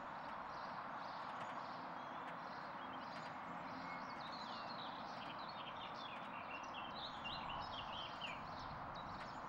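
Faint outdoor background hiss with a songbird singing: a run of quick, high, falling chirps from about three seconds in until near the end.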